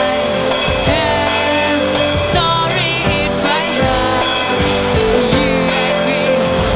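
Live rock band playing: a girl sings into a handheld microphone, the melody wavering in pitch, over electric guitar, bass guitar and a drum kit.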